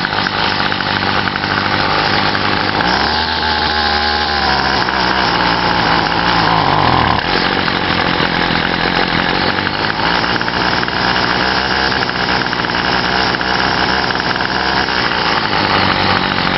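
Featherlite Weedeater string trimmer's small two-stroke engine running shortly after a cold start, with its pitch rising and shifting for a few seconds from about three seconds in, then settling back to steady running.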